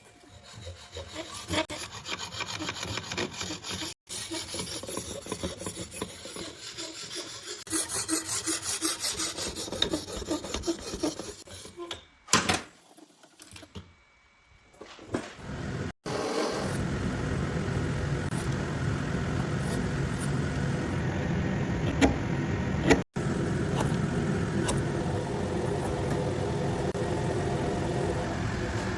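Rhythmic rasping strokes of hand sawing or filing on the sword's fittings for the first dozen seconds, broken by short gaps. After a pause comes a louder, steady rushing noise to the end, typical of a power tool running on the work.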